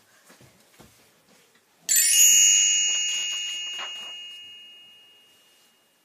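A bright chime struck once about two seconds in, ringing with several high tones and fading slowly over about four seconds: the signal to turn the page.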